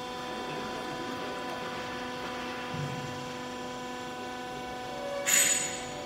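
Steady machine hum made of several even tones. Near the end comes a short, louder burst of rustling, about a second long, as clothes and the woven sack are handled.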